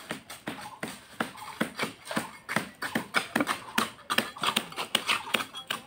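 Quick, irregular scraping and tapping of hand tools working wet concrete and mortar, several strikes a second.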